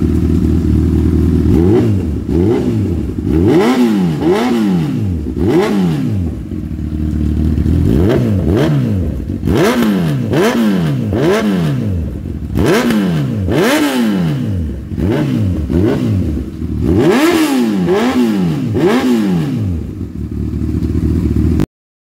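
Honda CB1000R's inline-four engine breathing through an Akrapovic Slip-On Line titanium muffler, stationary. It idles at first, then is revved in repeated sharp throttle blips, the revs shooting up and dropping straight back each time, in clusters with short idle spells between them.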